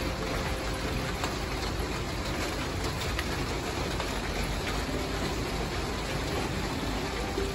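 Steady rain falling on wet ground, an even hiss with no break.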